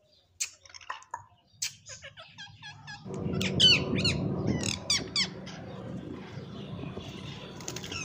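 Indian ringneck parakeets calling: scattered short chirps and clicks, then a run of loud, shrill sweeping squawks about three and a half seconds in, over a steady low hum that comes in at about three seconds.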